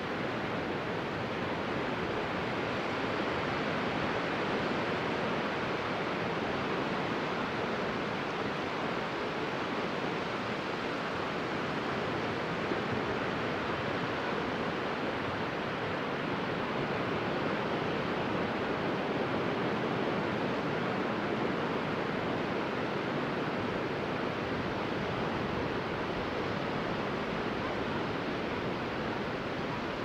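Sea surf: small waves breaking and washing onto a sandy beach in a continuous, steady rush with gentle swells, and no single crash standing out.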